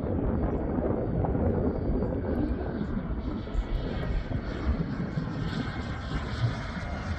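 KingTech K102 turbine of an RC model jet in flight: a steady rushing jet noise with a faint high whine.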